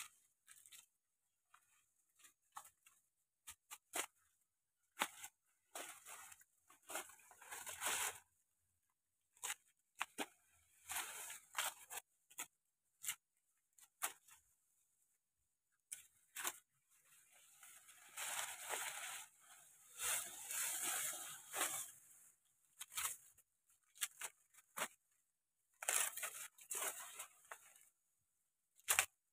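Maize leaves being torn off the stalks by hand: dry and green leaves rustling and tearing in irregular bursts, with short snaps between, the longest burst lasting a few seconds around the middle.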